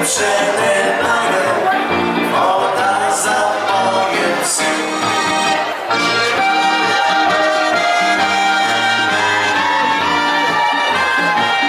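Folk dance music from an accordion and brass band, with a steady pulsing bass.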